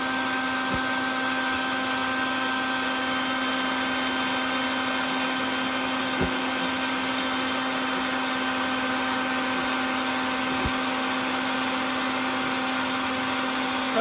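Vacuum running steadily with a constant hum, its hose held at the entrance of a yellow jacket nest to suck up the wasps. Three faint ticks come through over the hum.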